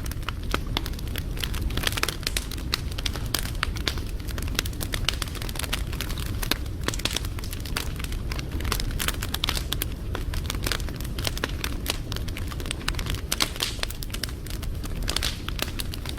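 Wood fire burning, crackling and popping with many irregular snaps over a steady low rumble.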